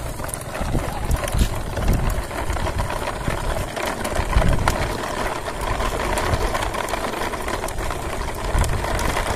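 Plastic toy truck-and-trailer wheels rolling over rough, cracked road surface: a steady low rumble with scattered clicks and rattles.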